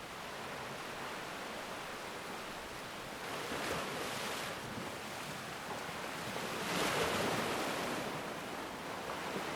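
Ocean surf: a steady wash of waves, with two louder breakers swelling and falling away, one about three and a half seconds in and one about seven seconds in.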